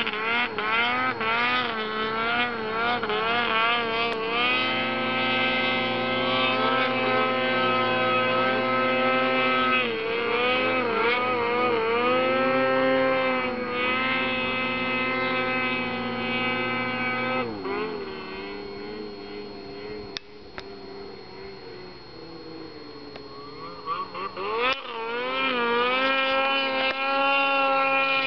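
Snowmobile engine running, its pitch rising and falling with the throttle; it drops quieter for several seconds about two-thirds through, then comes back up near the end.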